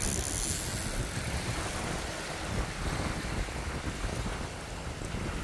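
Wind buffeting the microphone: a steady, uneven low rumble with a hiss over it.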